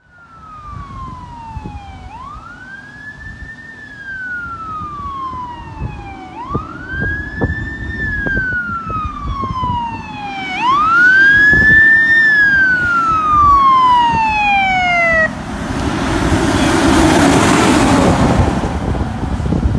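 Fire truck siren wailing as it approaches: three rise-and-fall cycles about four seconds apart, each rising quickly and falling slowly, growing louder. The siren stops about fifteen seconds in, and the truck rushes past close by.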